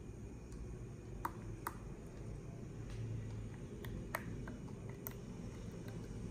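Thick avocado pudding mixture being poured into a plastic pudding mold: a quiet, steady low hum with a few small sharp clicks and ticks scattered through it.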